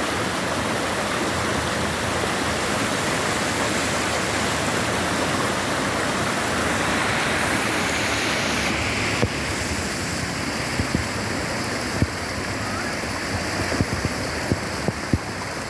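Floodwater rushing across a road, a steady dense rushing noise. From about nine seconds in, a few scattered sharp thumps sound over it.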